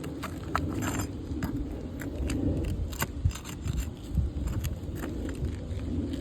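Metal hand tool scraping and clicking against asphalt roof shingles and nails, a run of irregular sharp clinks and scrapes, over a steady low rumble.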